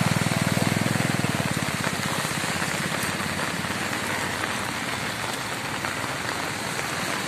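Heavy rain falling steadily on a flooded road, an even hiss. A low rumble is loudest at the start and fades out about two seconds in.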